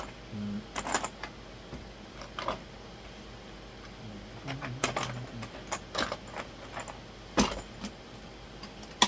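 Small hardware being handled, screws and wall-anchor sleeves: scattered light clicks and rattles, with one sharper click near the end.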